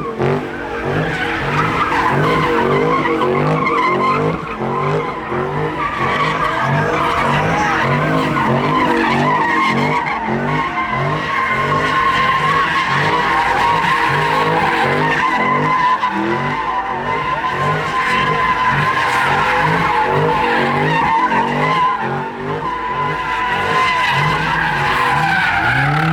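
A car doing a burnout: tyres squealing continuously while the engine revs up and down in repeated pulses, about once a second.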